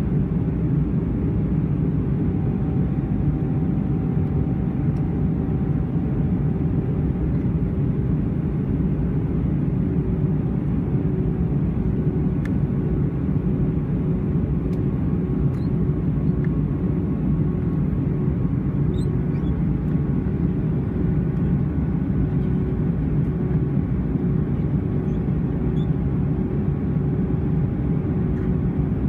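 Steady cabin noise of an Airbus A320 in flight, heard from a window seat by the wing: a constant low rush of engines and airflow, with a faint steady hum running through it.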